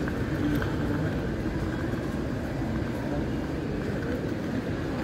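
Steady background noise of a busy railway station concourse: a low rumble with the general bustle of passers-by.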